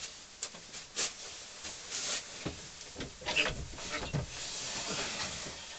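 Rubbing and scuffing handling noises on the cast-iron lathe bed, with scattered light knocks and clicks and a longer stretch of rubbing near the end.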